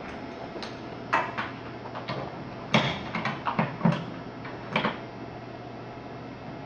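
Light clicks and knocks from hands working the brass quick-connect fittings and dust caps on a mini-split outdoor unit's service valves, about nine in the first five seconds, over a steady low hum.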